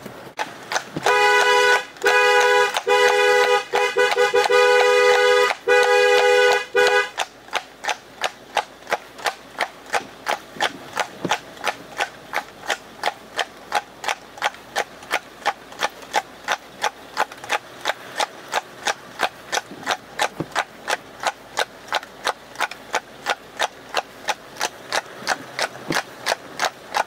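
A two-tone car horn sounding in several long blasts over about six seconds, then a Clydesdale-cross mare's hooves clip-clopping steadily on a hard surface, about three beats a second.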